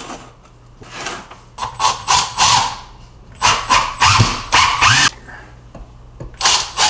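Cordless drill driving screws through a wooden support board into the wall, in several short bursts with pauses between them.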